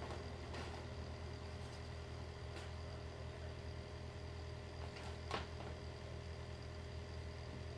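Demolition site: the diesel engine of heavy demolition machinery runs steadily at low revs, with a few sharp knocks and clatters of wreckage being broken and loaded. The loudest knock comes about five seconds in.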